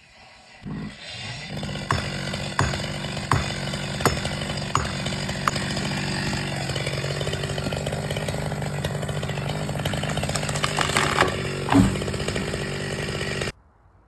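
Chainsaw running steadily, with a string of sharp ticks over its first few seconds and a loud knock near the end, then cut off abruptly.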